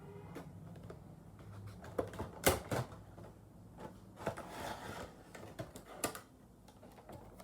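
Toy packaging being opened by hand: a run of sharp clicks and snaps with a stretch of rustling in the middle.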